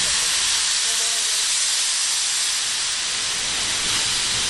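Steady, loud hiss of steam escaping from JNR Class 8620 steam locomotive No. 8630.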